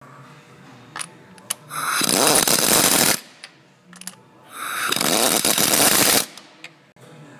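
A power wrench with a socket on an extension runs two engine-mount nuts down onto their studs, in two separate bursts of about a second each, with a couple of light clicks before the first.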